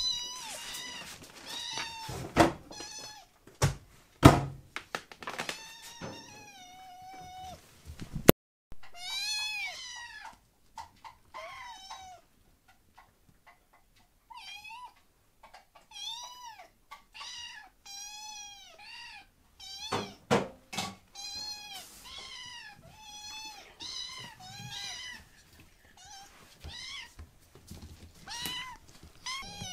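Kittens meowing over and over, many short high mews that rise and fall in pitch, some overlapping. A few sharp knocks and thumps come between them.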